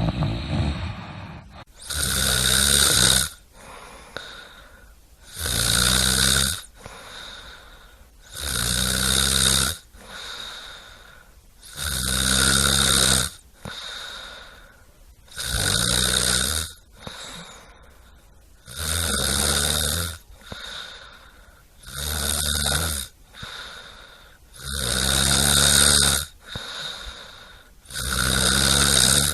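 A sleeper snoring in a steady rhythm: a long, loud snore about every three and a half seconds, nine in all, with quieter breaths between them.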